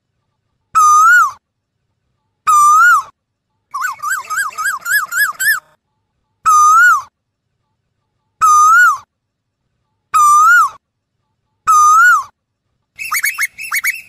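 Asian koel calling: clear whistled notes, each rising and then dipping, repeated about every one and a half to two seconds. A quick run of rising notes comes about four seconds in, and a fast, higher-pitched series of notes starts near the end.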